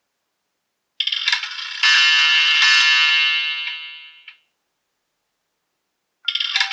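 A Nokia E63 ringtone playing. A melodic phrase of about three and a half seconds begins about a second in and stops. The phrase starts over near the end as the tone repeats.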